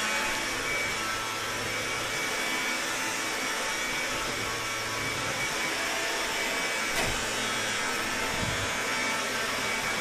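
Stick vacuum cleaner running steadily on a hard floor: an even motor whine and rush of air, with a single knock about seven seconds in.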